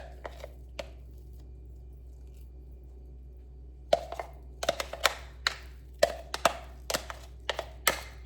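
A kitchen utensil knocking and scraping against a container as chickpea mash is emptied from a food processor bowl into a bowl: a few light clicks, a pause, then about four seconds in a run of sharp, irregular knocks, roughly two a second.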